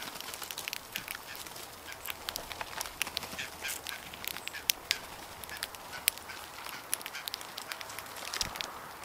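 A flock of common grackles foraging on the ground, giving a dense, irregular run of short, sharp calls that overlap one another.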